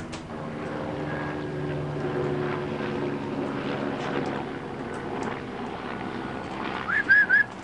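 A steady engine drone with a low hum, and near the end three quick, short high-pitched squeaks, the loudest sounds.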